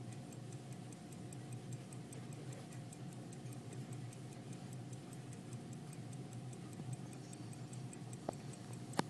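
Waltham pocket watch ticking with fast, even ticks over a low steady hum, with two sharper clicks near the end.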